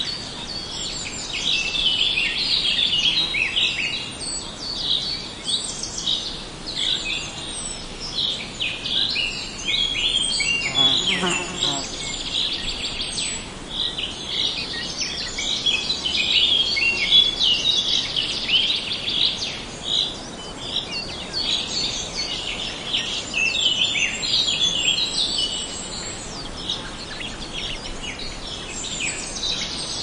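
Dense chorus of many small songbirds chirping and twittering, high-pitched and continuous. About eleven seconds in, a lower call slides down in pitch over about a second.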